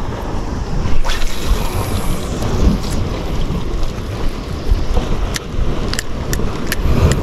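Wind buffeting the microphone with a heavy, steady rumble, swelling about a second in. Several sharp clicks come in the last couple of seconds.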